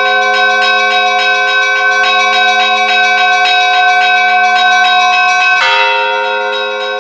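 Church bells ringing: a quick, steady peal of smaller bells at about four strikes a second over the sustained hum of larger bells. About five and a half seconds in there is a sudden sharp clash, and the ringing briefly changes before the peal resumes.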